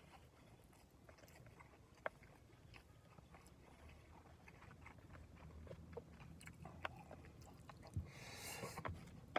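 Faint close-up eating sounds: chewing, with scattered small mouth and chopstick clicks, over a low steady hum. A short hissy rustle comes about eight seconds in.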